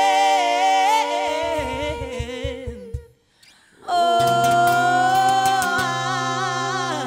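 Two women singing long, wordless held notes in close harmony over a low steady accompaniment note. The first chord fades out about three seconds in; after a brief silence a second held chord follows, rounding off the song.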